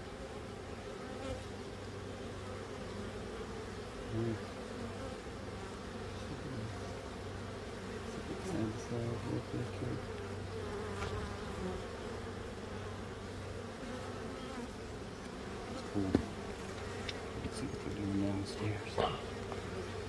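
A colony of honey bees buzzing in an opened hive: a steady, low, many-voiced hum, swelling now and then as bees pass close, with a few short sharp clicks near the end.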